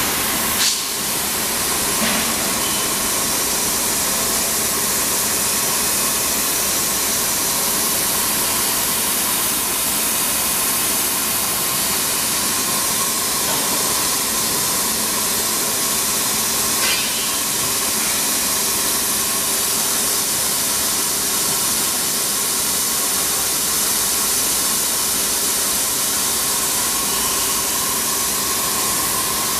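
Steady running noise of a steel-bar straightening and peeling line: a constant hiss with a steady hum tone, broken by a few brief knocks, one near the start and one about halfway through.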